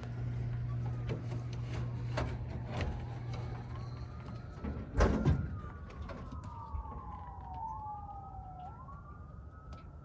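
An emergency vehicle's siren wailing, its pitch sliding slowly up and down, through the second half. A loud thump comes about five seconds in, just as the siren begins.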